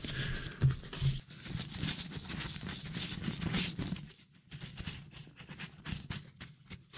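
A cleaning wipe rubbed back and forth across an iPhone 12's glass screen close to the microphone. The rubbing is dense for about four seconds, then thins to quieter, scattered strokes.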